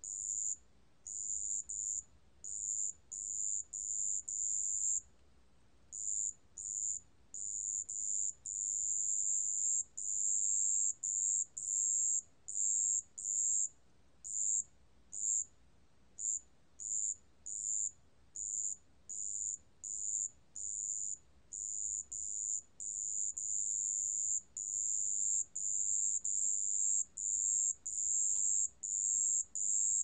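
Song of the 습지방울벌레, a Korean cricket, recorded at 27 °C: a high-pitched, pure-toned trill in bursts of varying length, some under half a second and some running a few seconds, separated by short gaps.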